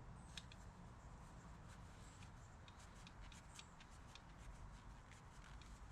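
Faint scattered light ticks and scratches of a towel rubbing the inside of a throttle body while its carbon deposits are cleaned off by hand, over near-silent room tone.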